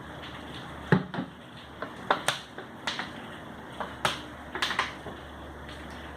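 Irregular sharp clicks and light knocks, about a dozen over several seconds, from hard objects being handled, over a steady low hum.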